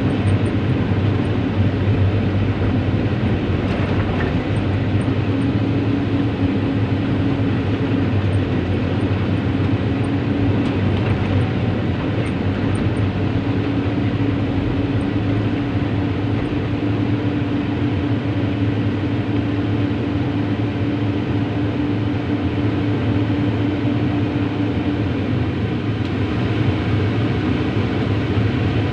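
Heavy diesel engine of a tracked excavator running steadily under load while the machine travels, with a constant low hum and a steady drone above it.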